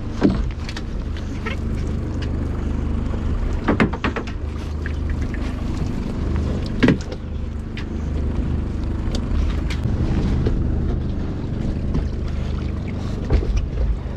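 Small boat's engine running steadily, with a few sharp knocks as a gaff and a crab pot's rope are hauled in against the hull.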